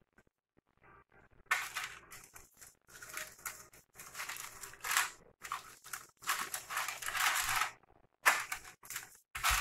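Baking parchment rustling and crinkling in irregular bursts under hands shaping dough balls and setting them on a paper-lined baking tray, starting about a second and a half in.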